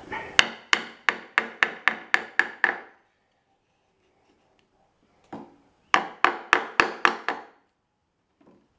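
A plastic mallet tapping a wooden block to press a bend into the aluminium tab of an aircraft trim tab, tightening the bend. There are two quick runs of taps, about four a second: roughly ten, then a pause broken by one tap, then about seven more.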